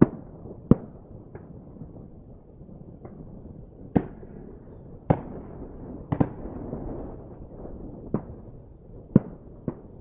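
Duck hunters' shotguns firing in the distance: about ten scattered shots of varying loudness, some close together in pairs, each trailing off in an echo, over a steady background of wind.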